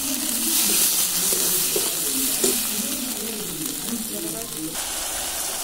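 Ground spice paste sizzling in hot oil in a metal karai (wok) while a metal spatula stirs it, as the masala is fried down.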